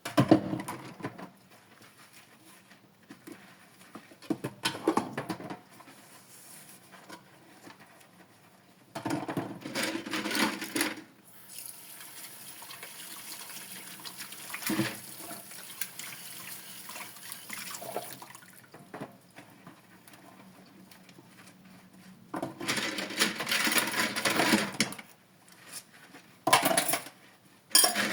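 Dishes being washed at a sink. A tap runs steadily for several seconds in the middle, between irregular bursts of splashing water and handling of dishes.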